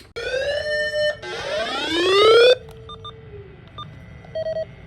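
Two electronic whoops that rise in pitch. The second is longer and louder and cuts off suddenly. A few faint short beeps follow.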